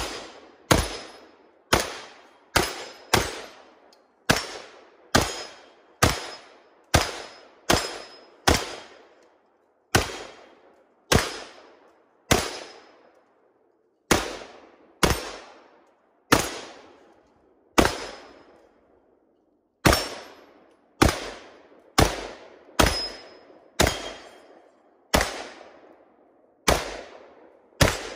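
AR-15-style rifle fired semi-automatically, about thirty single shots roughly a second apart with a few longer pauses. Each crack is followed by a short fading echo.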